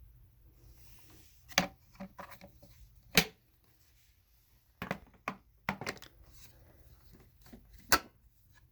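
A series of sharp clicks and knocks, about eight, spaced irregularly, like hard parts being handled and set down. The loudest comes a little past three seconds in and another near the end.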